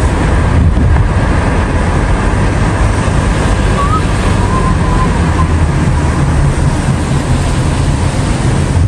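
Steady road and wind noise from a moving car: a constant low rumble with hiss over it.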